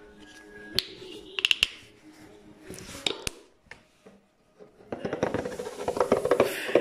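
Plastic bottles handled on a wooden table: scattered sharp clicks and knocks, a short pause, then a dense run of rubbing and clattering for the last couple of seconds.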